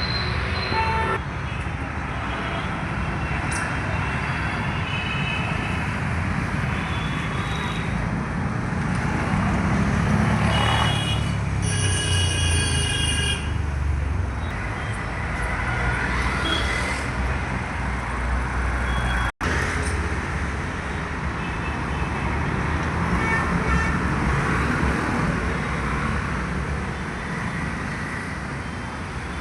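Road traffic noise, with vehicle engines running steadily. A horn sounds for about two seconds a little before the middle, and the sound cuts out for an instant about two-thirds of the way through.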